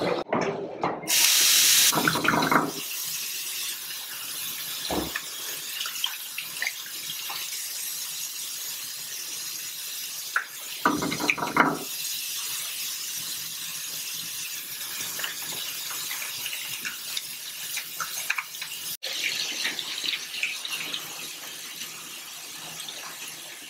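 Water tap running steadily into a ceramic washbasin while hands are washed under it, with brief splashing and hand-rubbing noises. A louder burst of noise about a second in.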